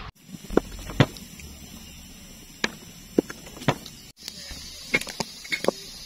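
Scattered sharp clicks and knocks, about nine in all at irregular intervals, the loudest about a second in, over a steady background hiss.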